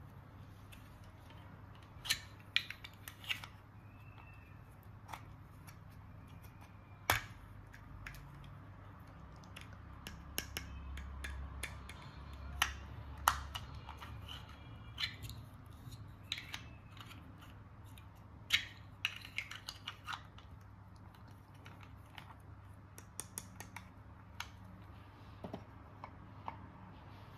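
Irregular small clicks and taps from unpacking and handling small plastic toy pieces and their packaging by hand.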